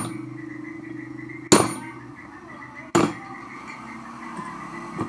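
A hammer striking a flat steel bar held against the slanted side of a blender's drive-coupling teeth: two sharp metallic strikes, about a second and a half apart, then a light tap near the end. The blows knock the worn coupling clockwise to unscrew it from the motor shaft.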